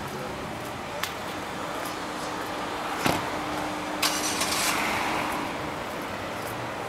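Street traffic: a car's engine and tyres swell as it passes and then fade away, over steady road noise. Three sharp knocks come about one, three and four seconds in.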